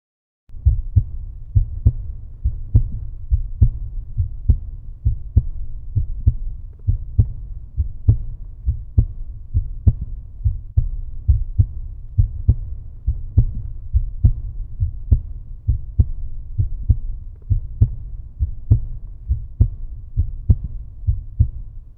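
Heartbeat sound: a steady rhythm of deep, low thumps, a little over one beat a second, starting about half a second in.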